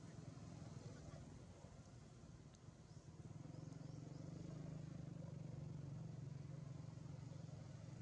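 Faint, steady low motor hum that grows a little louder about three seconds in.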